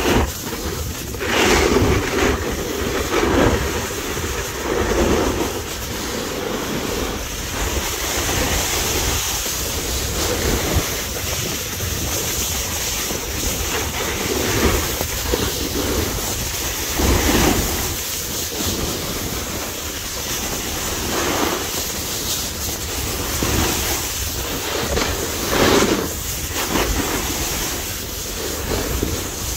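Wind rushing over the microphone during a fast run down a groomed ski slope, with swelling scrapes every second or two as edges carve across the snow on each turn, a few of them sharper.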